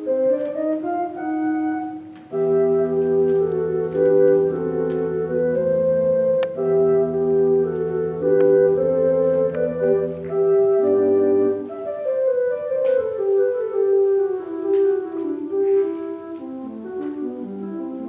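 Organ music: slow, sustained chords over long-held low bass notes, with the melody moving step by step above them.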